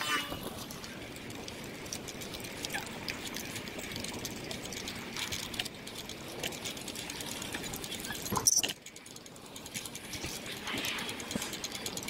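SG Bike shared bicycle rolling along a smooth paved path: steady tyre and wind noise with light clicking and rattling from the bike, and one sharp clatter about eight and a half seconds in.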